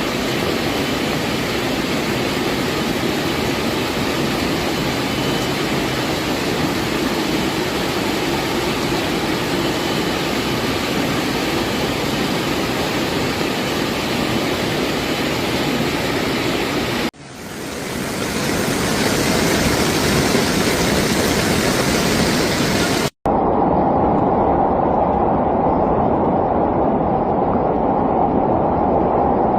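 Steady rushing noise of flash floodwater and heavy rain, heard in three separate recordings that cut from one to the next, the last one duller and muffled.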